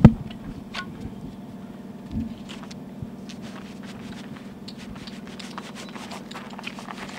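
Scuba gear being handled: a sharp knock at the start and another about two seconds in, then scattered small clicks and rattles as the regulator and diving cylinder are fitted together, over a steady low hum.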